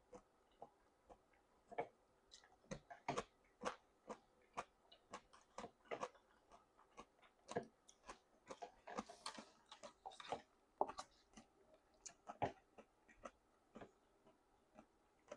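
Close-up chewing of jajangmyeon noodles: wet mouth clicks and smacks at an uneven pace, with a couple of longer, wetter sounds about nine and ten seconds in.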